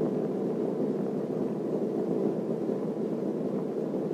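Steady, even low drone-like noise with no distinct events.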